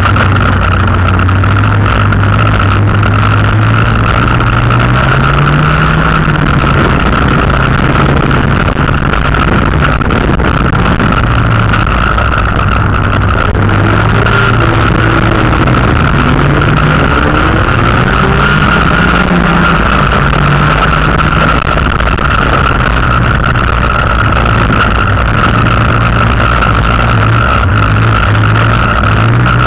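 An autocross car's engine heard from inside the car, loud and steady in level, its pitch climbing and dropping again and again with throttle and gear changes as it drives hard on a dirt track. A steady high-pitched whine runs underneath.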